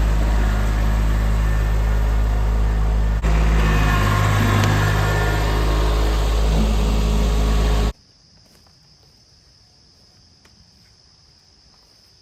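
An engine running steadily at an even pitch, cut off abruptly about eight seconds in. Crickets chirp faintly after it stops.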